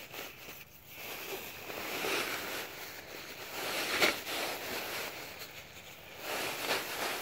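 Nylon fabric of a Big Bagger leaf bag rustling and crinkling as it is gripped and moved by hand, uneven in loudness, with a sharp crinkle about four seconds in.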